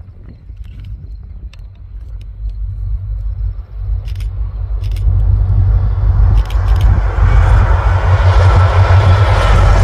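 Union Pacific 4533, an EMD SD70M diesel-electric locomotive, approaching and passing close by: its engine rumble swells steadily, and the rushing wheel-on-rail noise grows loud as the locomotive comes alongside about seven seconds in. A few sharp ticks sound shortly before.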